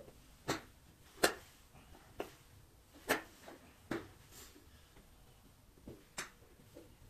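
Sharp clicks of golf clubs striking balls at a driving range, about seven of them at irregular intervals, the loudest a little over a second in.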